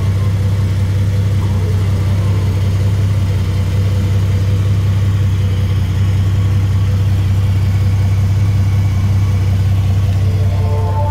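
A 2006 Jeep Wrangler Unlimited's 4.0-litre straight-six engine running at a steady idle, a constant low hum with no change in revs.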